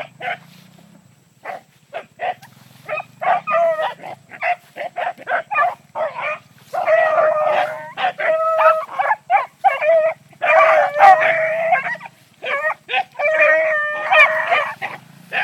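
Beagles baying while running a rabbit: short, choppy barks at first, then longer drawn-out bays from about seven seconds in.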